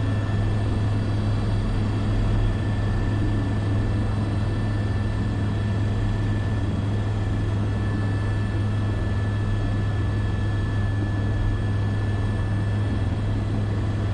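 Airbus AS350 B3 (H125) helicopter in flight, heard from inside the cockpit: a steady low drone from the rotor and turbine with a thin, steady high whine over it.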